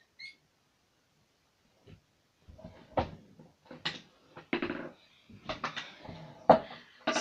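Handling noise on a tablet that is recording: several sharp knocks and rubbing close to its microphone, starting about two and a half seconds in, the loudest knock near the end.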